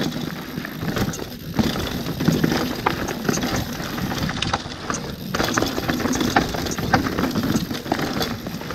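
Mountain bike riding fast down a rough trail: tyres running over dirt and roots, with the chain and frame clattering and wind on the microphone. The noise briefly drops away twice, about a second and a half in and again around five seconds in.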